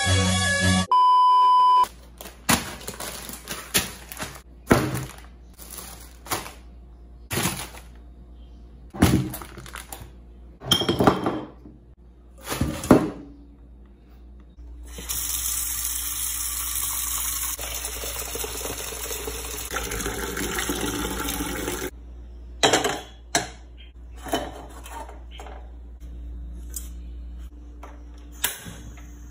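Kitchen handling sounds: a short beep tone near the start, then scattered knocks and rustles of packets and a steel pot being handled. Next, tap water runs steadily into the pot for about seven seconds, followed by clicks and knocks as the gas stove's knob is turned to light the burner.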